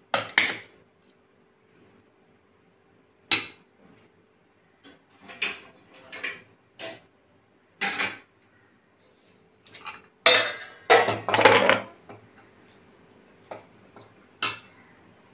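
Steel spatula scraping and clanking against an aluminium pressure cooker as cooked basmati rice is scooped and loosened, in irregular scrapes and knocks, the loudest run of them about ten to twelve seconds in.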